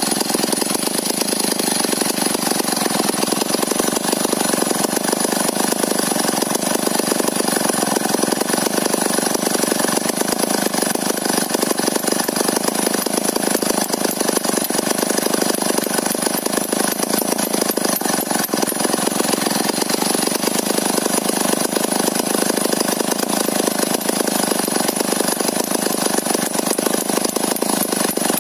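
STIHL 070 two-stroke chainsaw idling steadily, with a fast, even pulsing and no revving.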